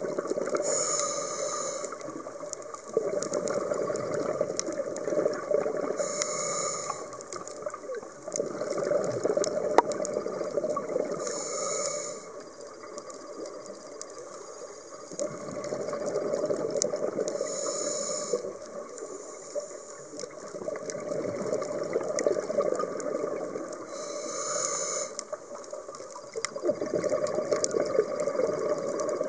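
Scuba diver breathing through a regulator underwater: a short hissing inhale about every six seconds, five in all, each followed by a few seconds of rushing, bubbling exhaust.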